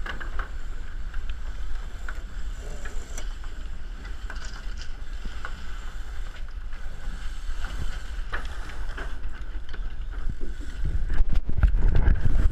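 Wind buffeting the microphone and water rushing past the hulls of a racing catamaran under sail, a steady low rush. It grows louder about eleven seconds in, with a run of sharp knocks and rattles as the crew handle the sail and lines.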